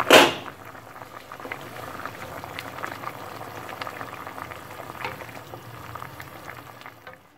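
Pot of vegetable and red lentil curry bubbling on the stove, stirred with a wooden spoon: a steady crackle of small pops and ticks. A brief loud noise comes just at the start.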